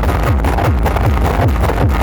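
Electronic dance music played very loud through a large competition sound system, with a heavy kick drum dropping in pitch about two and a half times a second.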